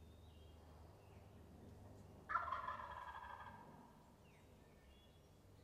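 A wild turkey gobbler gobbles once, about two seconds in: a sudden rattling call that trails off over a second or so.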